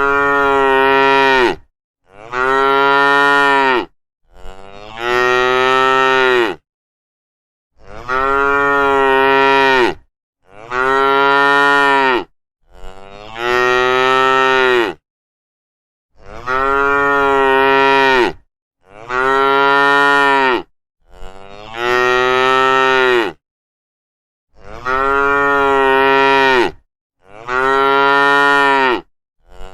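Cows mooing: about eleven long, loud moos of roughly two seconds each, one after another with short silent gaps between them.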